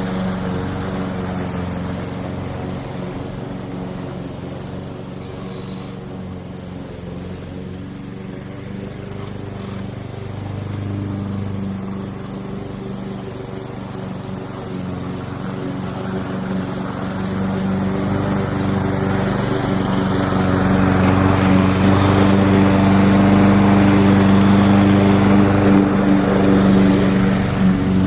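Weed Eater walk-behind lawn mower's small engine running steadily, getting louder from about two-thirds of the way through.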